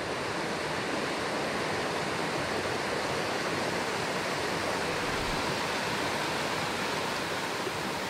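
Small forest creek cascading over rocks and logs, a steady rush of water.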